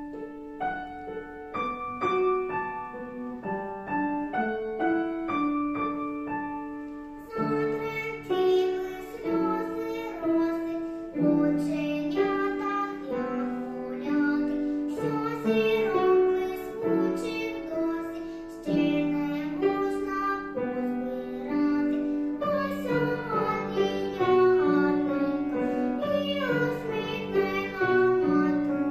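A young girl singing a children's song to a piano accompaniment; the first seven seconds are sparse separate notes, and from about seven seconds in the music grows fuller, with longer held notes.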